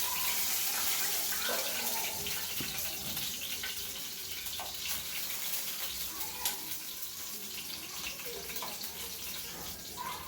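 Chicken wings sizzling in hot oil in a shallow-frying pan: a steady hiss with scattered crackles, easing slightly over the seconds.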